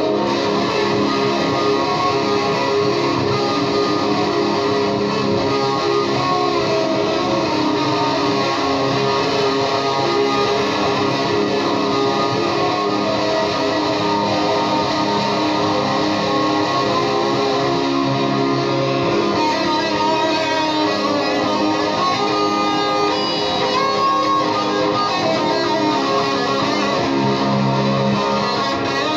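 Distorted electric guitar through an Orange amp, playing dense, sustained psychedelic noise over a looped layer, steady in loudness throughout.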